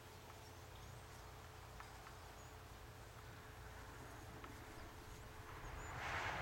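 Faint outdoor ambience: a steady low rumble with a few short, high bird chirps scattered through it. About six seconds in, a louder rushing noise sets in.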